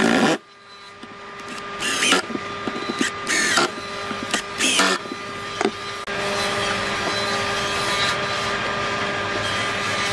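Electric drill driving wood screws into pine boards: the motor whirs in several short spurts, then runs steadily through the last few seconds.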